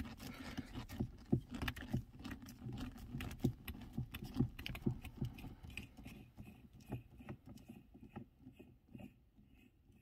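Irregular small clicks, taps and rubbing of a hand gripping and twisting a Ford Mondeo MK4 gear knob anti-clockwise to unscrew it from the gear lever, thinning out over the last couple of seconds.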